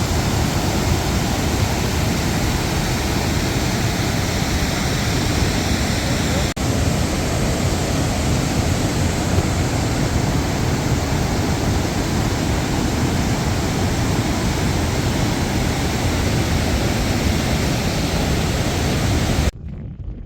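Gullfoss waterfall: a loud, steady rush of falling water, with a brief dip about six seconds in. It cuts off suddenly near the end, leaving a much quieter background.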